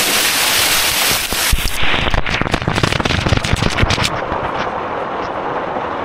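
Rushing waterfall water as a loud, steady hiss, broken from about one and a half to four seconds in by a rapid run of crackling knocks and splashes; after that the sound turns duller, with the high hiss gone.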